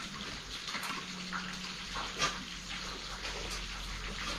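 Running water: a steady splashing hiss with scattered small clicks and knocks.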